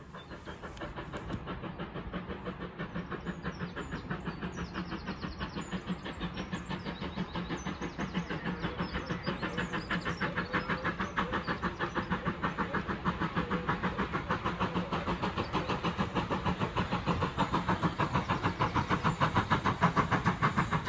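Ex-GWR 57xx pannier tank steam locomotive working a passenger train, its exhaust beating in rapid, even chuffs that grow louder as it approaches.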